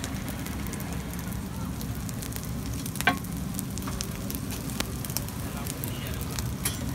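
Rice and spices sizzling on a large flat metal street-food griddle (tawa), with scattered light clicks and one sharper click about three seconds in.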